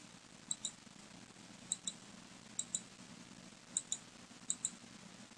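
Computer mouse button clicked five times, about once a second. Each click is a quick double tick, the button's press and release, as points are placed along a line in a drawing program.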